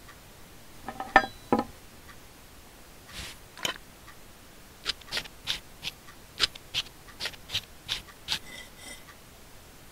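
Knife and fork working at a steak on a plate: two clinks about a second in, then a run of short scraping, sawing strokes, about three a second, as the knife cuts.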